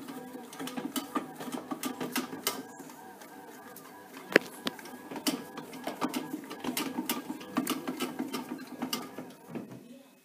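Panasonic SD-2500 bread maker's motor kneading dough: a steady motor hum, with the paddle and dough making irregular clicks and knocks in the pan, one louder knock about halfway. The motor stops near the end.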